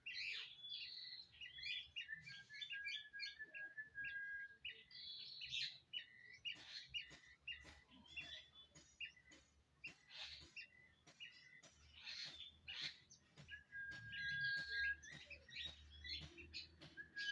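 Birds chirping busily throughout: rapid high chirps with short held whistles, mixed with many quick clicks.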